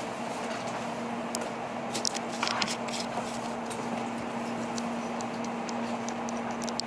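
Steady cabin hum inside a stopped Tokaido Shinkansen car, a constant low tone over an even hiss, with a few light clicks and a brief rustle about two seconds in and more small clicks near the end.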